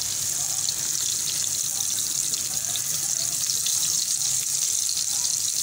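Beef-mince chapli kabab shallow-frying in oil in a non-stick pan over a medium flame: a steady sizzling hiss with fine crackles of spitting oil.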